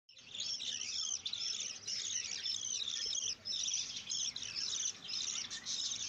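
Budgerigars chattering: a dense run of quick, high chirps in bouts, with brief breaks about two, three and a half, and five seconds in.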